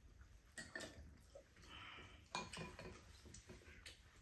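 A few faint, light clicks of chopsticks and a spoon against ceramic bowls and a pan at a meal.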